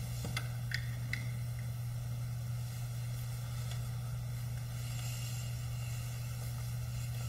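Room tone of a silent piano performance: a steady low electrical hum and faint hiss, with three faint clicks in the first second or so.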